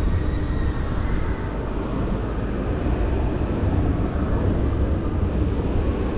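Zamperla Disk'o Coaster ride platform running on its track: a steady low rumble of the ride's wheels and drive.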